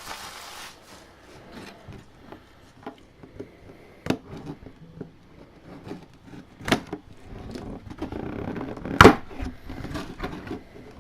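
A mini helmet's box and packaging being opened and handled by hand: scattered rustles and clicks with a few sharp knocks, the loudest about nine seconds in.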